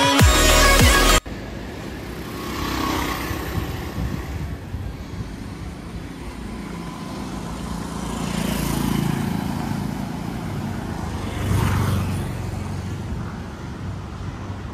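Electronic dance music cuts off about a second in, giving way to street noise in which vehicles pass by three times, the loudest about two-thirds of the way through.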